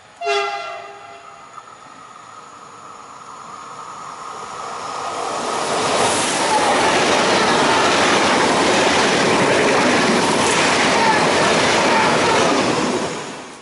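PKP Intercity Pendolino electric train sounding a short horn blast as it approaches, then passing at speed: a rush of wheels on rails and air that builds to a loud, steady level for about seven seconds and drops away near the end.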